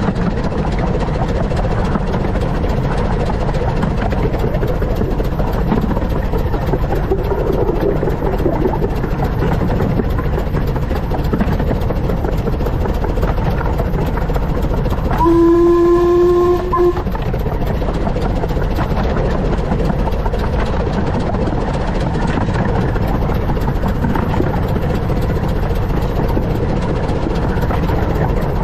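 15-inch-gauge steam locomotive River Mite running along the line with a steady rumble. About halfway through it gives one short whistle blast lasting about a second and a half.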